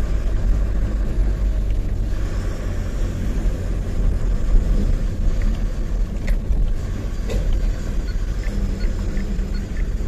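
Tata 1512 truck's diesel engine and road noise heard from inside the cab while driving: a steady low rumble.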